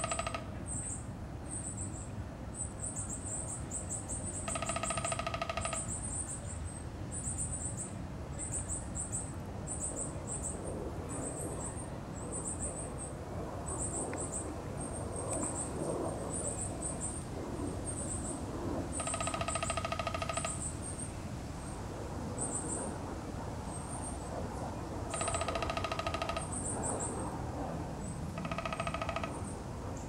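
Downy woodpecker drumming on a tree limb: a series of short rolls, each a rapid, even burst of strikes lasting about a second, coming at irregular intervals. High, thin chirps of other small birds go on throughout.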